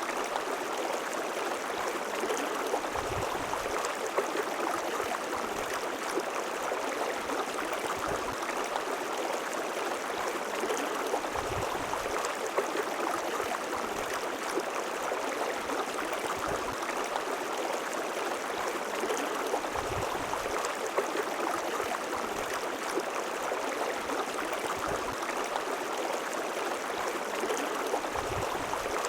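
River water flowing and babbling steadily over rocks, with small splashes and occasional soft low thuds.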